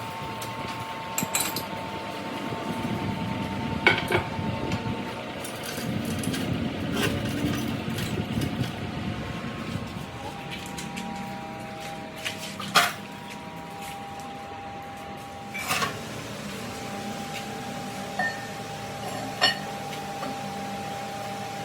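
Metal parts and tools clinking and knocking every few seconds in a workshop, with about five sharp strikes, over a steady machine hum.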